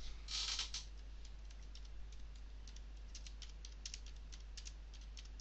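Typing on a computer keyboard: a run of light, quick keystrokes as a short phrase is typed, over a steady low hum. A brief rush of noise comes about half a second in, before the keystrokes.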